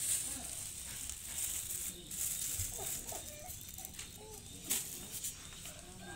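Thin plastic packaging crinkling and rattling as a disposable syringe is unwrapped and handled, in repeated short scratchy rustles with one sharper crackle about three-quarters of the way through.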